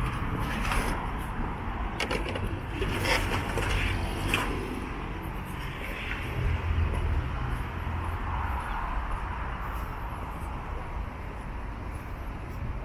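Street traffic: motor vehicle engines rumbling past, with a few short clicks and scrapes in the first few seconds.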